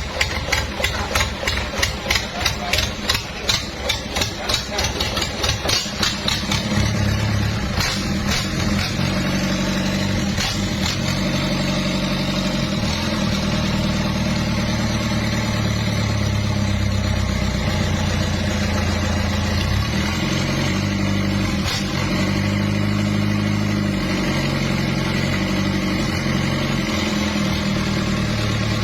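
Mitsubishi PS100 diesel engine running. For the first six seconds or so it beats in even, pulsing chugs, then it picks up to a faster, smoother run, with its speed shifting a few times. It is a freshly reconditioned engine being test-run.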